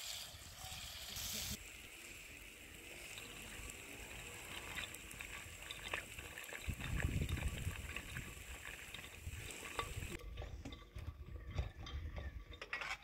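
Onions and tomatoes sizzling in a pan over a wood fire, with a hiss that cuts off after about a second and a half. After that, hands rub and slosh things in a bowl of water, with scattered clicks.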